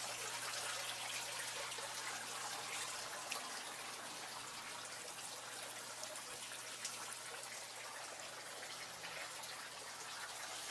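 Steady trickle of running water, with small scattered drips.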